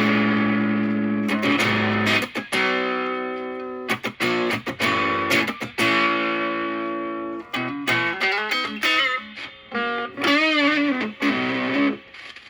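Stratocaster electric guitar through a Moollon Fuzz 14, a silicon Fuzz Face-style pedal with BC108 transistors, with its fuzz gain near full, into a Marshall Valvestate on crunch. Thick fuzzed chords are struck and left to ring out. From about seven seconds in come single-note lead phrases with bends and vibrato.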